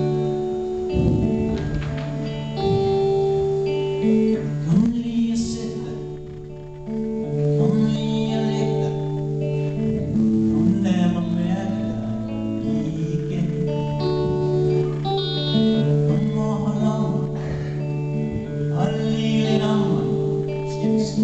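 Live rock band playing: electric guitar, bass guitar and drum kit, with a sustained guitar melody over the rhythm.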